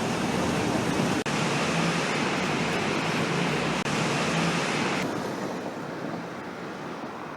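A steady rushing noise with no distinct tones, like surf, wind or heavy traffic, broken by abrupt cuts about a second in, near the middle and about two-thirds through, after which it is duller and slightly softer.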